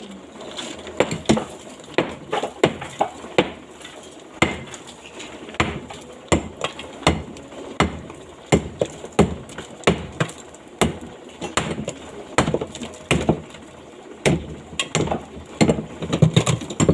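Repeated hammering: sharp knocks at an uneven pace of about one or two a second.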